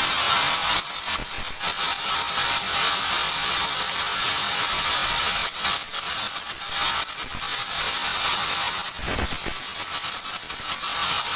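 Sawmill machinery running with a steady hiss and a dense, uneven rattle of mechanical clicks, with a single heavier low thump about nine seconds in.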